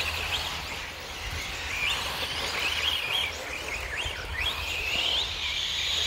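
1/8-scale electric off-road buggies racing on a dirt track, their brushless motors whining in short rising sweeps as they accelerate, several times over.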